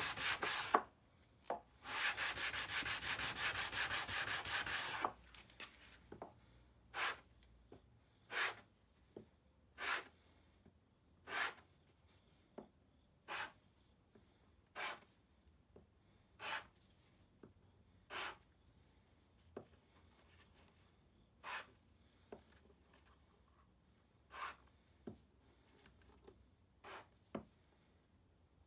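Wooden block sanded by hand on sandpaper: two spells of fast back-and-forth rubbing in the first few seconds, then separate single sanding strokes, about one every second and a half.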